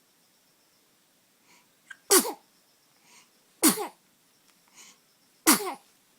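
Three sneezes in a row, about a second and a half apart, each preceded by a quick intake of breath and each dropping in pitch as it ends.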